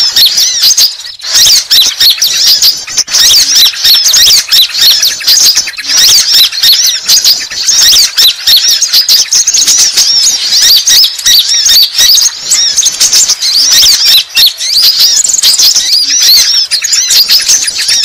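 Sunbirds (konin) twittering in a dense, unbroken stream of rapid, high-pitched chirps and trills, played as a bird-lure (pikat) recording meant to draw wild sunbirds in.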